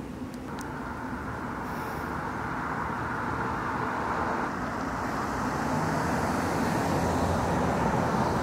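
Steady road-traffic noise, like a vehicle going by, growing gradually louder and then stopping abruptly.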